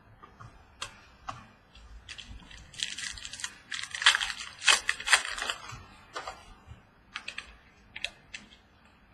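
Trading cards being handled and sorted: scattered light clicks and taps, with a busier stretch of rustling and sliding in the middle.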